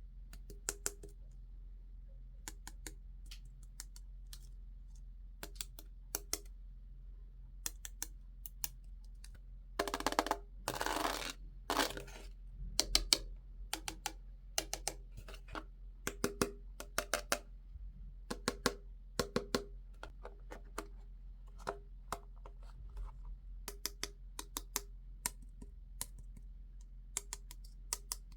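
Plastic toy pieces and packaging being handled during an unboxing: irregular light clicks and taps, with a short rustling stretch about ten seconds in.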